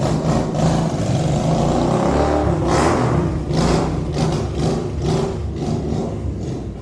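A car engine running loudly, its pitch rising and falling as it revs.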